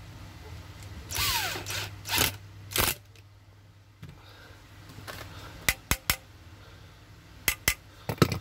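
Cordless drill running in short bursts, driving in the screws that hold an electric fan motor's housing together: one longer run with a falling whine, then two quick bursts. Later come several sharp clicks as the metal motor parts are handled.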